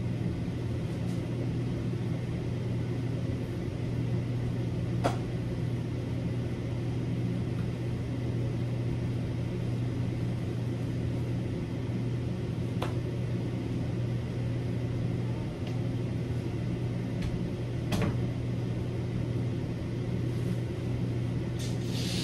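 Steady low mechanical hum in a small room, with a faint click about five seconds in, another around thirteen seconds and another around eighteen.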